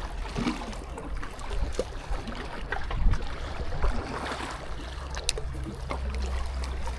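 Sea water washing and splashing at the shoreline, over a steady low rumble, with a few small clicks.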